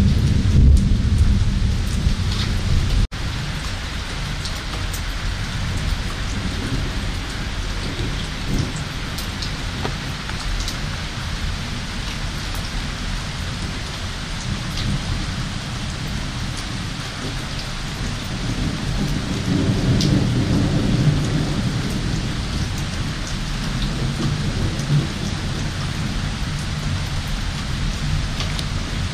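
Summer thunderstorm at night: steady heavy rain with scattered drips, and rolling thunder. A loud rumble fades over the first few seconds, the sound cuts out for an instant about three seconds in, and a second long, low rumble swells up about two-thirds of the way through.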